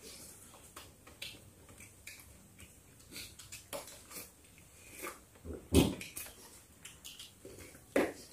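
Eating at a table: chewing and lip smacking, with scattered light clicks of spoons and fingers on plates. There are a few louder short sounds, the loudest about six seconds in.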